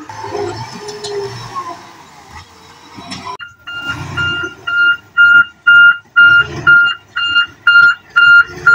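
A farm tractor's diesel engine running low. About three seconds in, a dump truck's reversing alarm starts beeping loud and even, about two beeps a second, with the truck's engine rumbling underneath.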